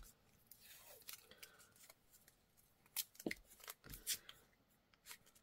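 Decorative paper tape being torn from the roll and pressed onto a paper cash envelope: a faint peeling hiss in the first second, then a few light crackles and taps around three to four seconds in.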